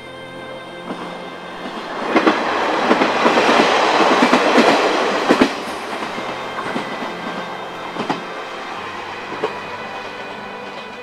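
KiHa 40 diesel railcar passing. The engine and wheel noise swell to a peak about two seconds in, with sharp clicks as the wheels cross rail joints, then fade as the railcar runs away down the line.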